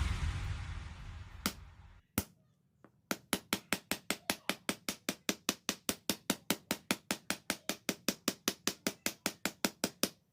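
A fading music tail, then a fast, even run of sharp hammer blows, about four or five a second, from hammering a khukuri blade.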